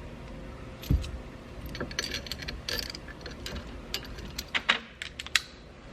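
Ratchet wrench clicking in short irregular runs while turning the centre forcing screw of a steering wheel puller on the steering column, with a single low thump about a second in.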